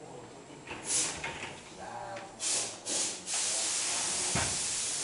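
Hissing spray in short bursts about one, two and a half and three seconds in, then a steady hiss from about three and a half seconds in, with a single low thump just after four seconds.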